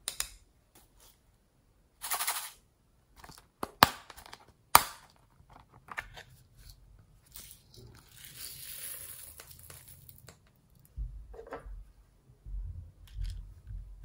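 Small plastic glitter and sequin containers being tapped and handled, with sharp plastic clicks (two loud ones a few seconds in) and a soft pouring hiss of sequins and glitter falling onto the slime about eight seconds in, then low handling bumps near the end.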